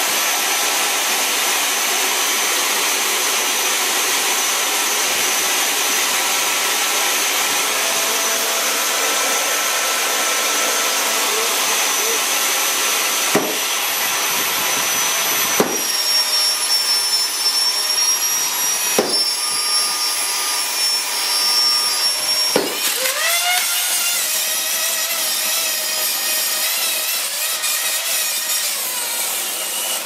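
Vacuum cleaner motor running on about 335 volts from a variac, a loud steady high whine. From about halfway there are several sharp cracks, and after them the whine wavers and shifts in pitch: the over-driven motor is arcing and burning out.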